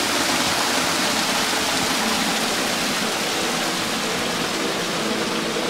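Water pouring over a ledge in a thin sheet: a steady rushing splash.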